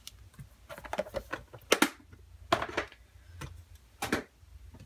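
Cardstock card pieces being set down and handled on a tabletop: a few separate light taps and paper clicks spread through the moment.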